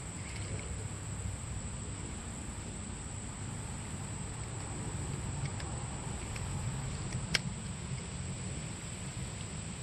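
Creekside ambience: a steady high-pitched insect drone over a low rumble of wind or moving water, with a few faint ticks and one sharp click about seven seconds in.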